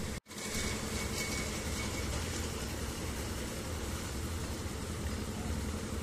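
Concrete mixer's engine running steadily at the building site, a constant low mechanical drone that cuts in just after the start.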